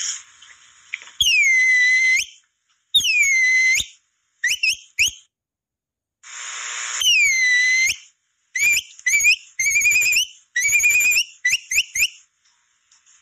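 Capybara call whistle (pio) being blown to lure capybaras: a few long whistles that swoop down and level off, then a quick run of short rising chirps.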